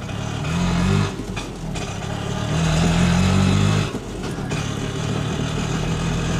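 Auto-rickshaw engine running, its pitch rising twice as it revs up and dropping back, then running steadily.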